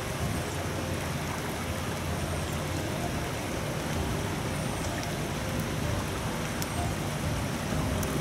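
Steady rushing of a shallow river flowing over stones, with a deep rumble underneath and a few faint high chirps.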